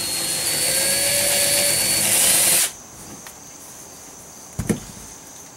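Cordless drill boring a small pilot hole into a boat's fiberglass gel coat, running steadily for about two and a half seconds and then stopping abruptly. A single sharp knock follows near the end.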